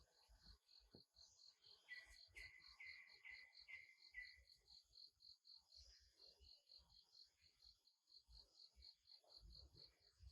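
Faint, steady insect chirping, pulsing about six times a second. About two seconds in comes a short run of five repeated lower calls.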